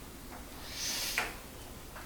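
Soft sliding rustle about a second in, followed by a light click: computer parts being handled while drives are fitted into a PC case.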